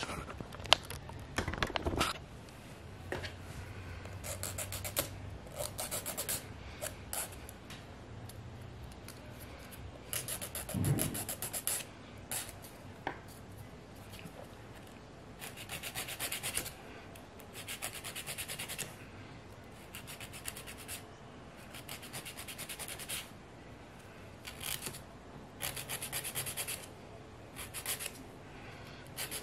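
Hand nail file rasping across artificial soft-gel nail tips in repeated bursts of quick back-and-forth strokes, shaping and shortening the nails. A few handling knocks near the start.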